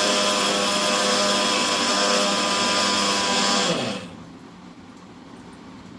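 Electric mixer grinder (mixie) running at full speed, grinding dried ingredients that were still coarse into a finer powder: a loud, steady motor hum. It is switched off about four seconds in and winds down, falling in pitch.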